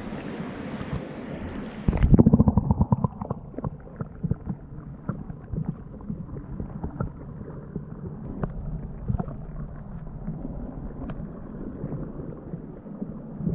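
A GoPro 7 dipped into a spring-fed pool: a loud burst of splashing crackle about two seconds in as it goes under. Then a muffled underwater wash with scattered small clicks and knocks, all the high sound cut off.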